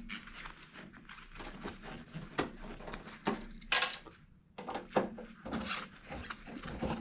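Scattered metal clicks, taps and light clatter as screws are worked out of a range hood's metal grill, with a louder scrape about four seconds in.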